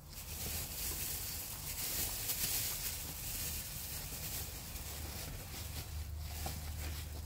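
A cat chewing salami: a dense run of small, crackly mouth clicks and smacks over a steady low hum.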